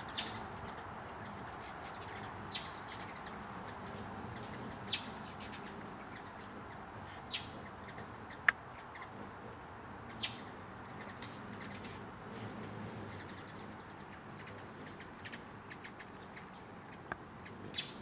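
Hummingbirds giving short, sharp, high chip calls, single chips spaced irregularly a second to a few seconds apart, over a steady background hiss.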